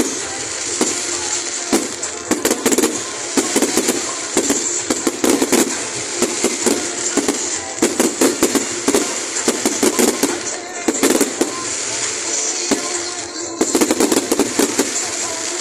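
Fireworks display: a fast, continuous run of bangs and crackles, with music playing underneath.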